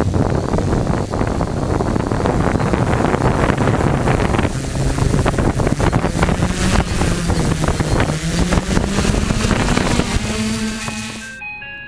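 Quadcopter's brushless motors and propellers spinning, the hum rising in pitch over the last few seconds as it throttles up and lifts off, with prop wash buffeting the microphone. Near the end the motor noise fades out and a tinkling jingle melody takes over.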